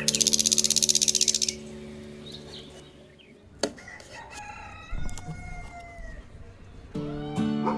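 A rooster crowing about halfway through, one long call that falls in pitch at its end. It follows a loud, fast rattling trill in the first second and a half.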